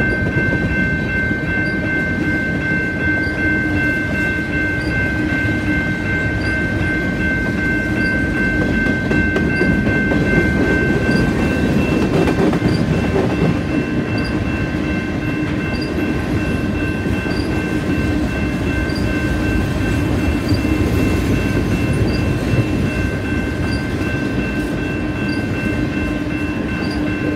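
A freight train of covered hopper cars rolling past close by: a steady rumble and clatter of steel wheels on the rails. Over it runs a high steady ringing tone that weakens midway and returns near the end, with faint regular ticks about once a second.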